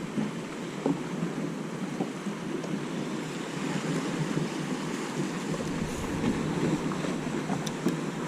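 Wind buffeting the microphone over water washing and lapping, a steady rushing noise with a few faint small clicks.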